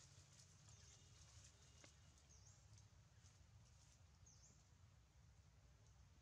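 Near silence: faint outdoor ambience with a steady low hum and a few faint, short high chirps.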